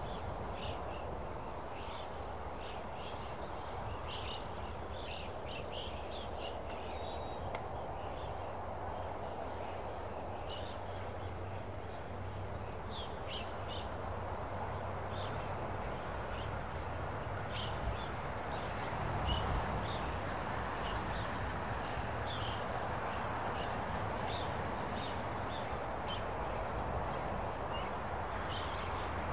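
Outdoor ambience: a steady, even rush of background noise with many short bird chirps scattered throughout, and a brief low swell a little past the middle.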